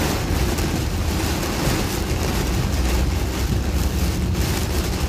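Heavy rain on a moving car, heard from inside the cabin, over a steady low rumble of tyres and wind.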